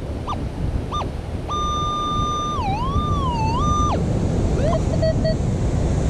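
Minelab Equinox metal detector sounding off on a buried target: two short high beeps, then a long high tone that dips in pitch twice as the coil sweeps, then a short rising beep and a few choppy lower tones near the end. Steady surf and wind noise underneath.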